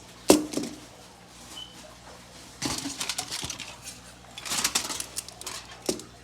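Kitchen clatter of dishes and utensils being handled: a sharp knock, then two spells of clinking and rattling, and a last knock near the end.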